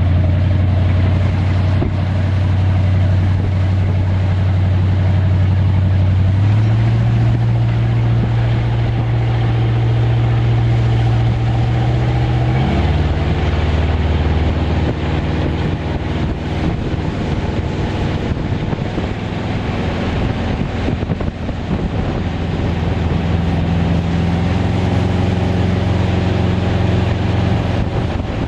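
Whipple-supercharged Mercruiser 496 V8 boat engine running under way at moderate revs, its note stepping up in pitch about six seconds in, dropping back about halfway through and rising a little again near the end.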